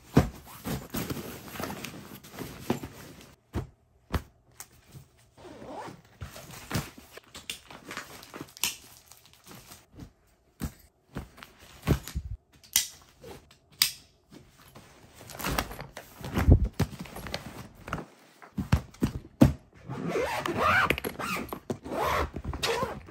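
Suitcase packing: fabric packing cubes rustling and thumping as they are set into a suitcase and pressed down by hand, with scattered knocks. Near the end, a zipper is run along the lid of a hard-shell suitcase to close it.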